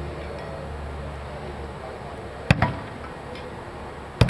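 Two sharp thunks of thrown blades striking a target, about two seconds apart. The first is followed at once by a smaller second knock.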